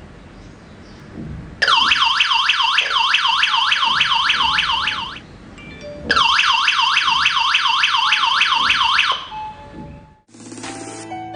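Fuers G95 wireless alarm kit's siren wailing in two bursts of about three seconds each, its pitch sweeping rapidly up and down about four times a second.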